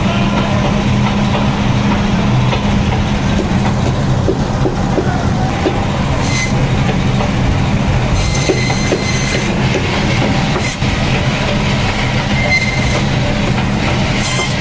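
Electric band saw running with a steady hum as its blade slices through large pangas catfish, with short high hissing bursts now and then as the blade cuts.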